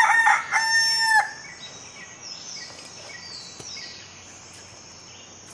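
A rooster crowing once, its long held final note ending about a second in. After it, a steady high-pitched insect trill and faint bird chirps.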